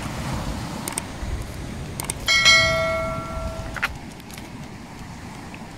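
Subscribe-button notification sound effect: a few short clicks, then a bright bell chime about two seconds in that rings for about a second and a half and ends with another click, over a steady low background rumble.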